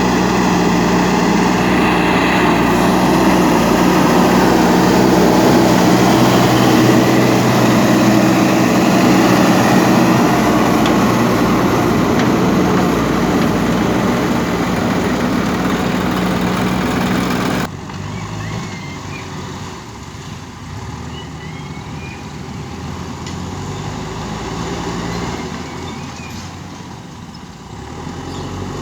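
JCB backhoe loader's diesel engine running hard with a steady hum, dropping suddenly to a quieter running sound about two-thirds of the way through, with a few short high chirps over it afterwards.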